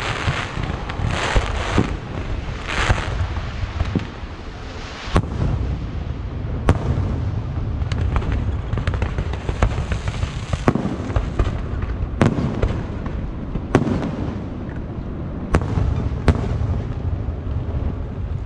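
Aerial fireworks going off: a continuous rumble and crackle of launches and bursts, with hissing surges at first and then sharp shell bangs every second or two, seven in all.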